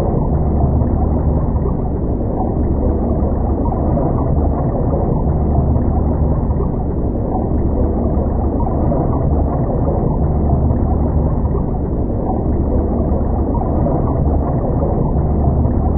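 Steady, muffled rush of river water picked up underwater through an underwater camera's sealed housing, with a deep low rumble underneath.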